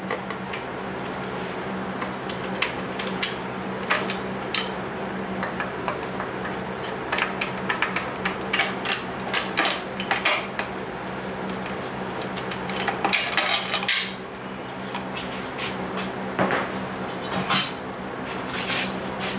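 Screwdriver and hands working on the top cover of an Evinrude 3 hp outboard motor: irregular metallic clinks, clicks and scrapes, busiest around the middle of the stretch, over a steady low hum.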